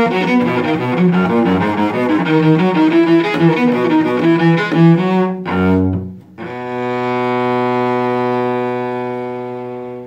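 Solo cello, bowed, playing a quick run of notes, then a short low note and a brief break before a long held final note that slowly fades.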